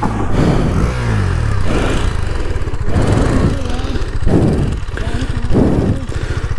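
KTM RC sportbike's single-cylinder engine revving hard in several surges as the rear tyre spins on loose dirt and grass, the bike struggling to climb a steep slope.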